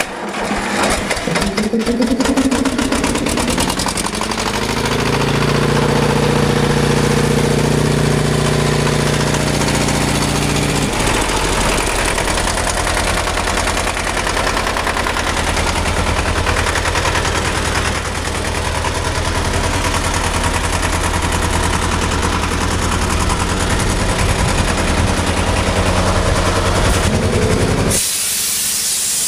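Engine of an old trailer-mounted air compressor starting and revving up, then running steadily, its note settling lower about eleven seconds in. Near the end a loud hiss of compressed air from the blow-gun lance cuts in.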